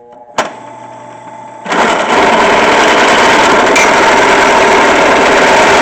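Drill press switching on with a click and its motor running, then about two seconds in the bit bites into steel pipe with a loud, steady cutting noise.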